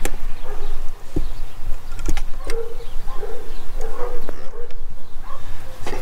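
A dog barking, several short barks, over a steady low rumble and a few sharp knocks from the handheld camera being moved about.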